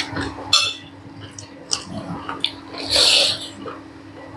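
Close-up mouth sounds of eating: wet clicks and smacks, with a louder noisy burst of about half a second about three seconds in.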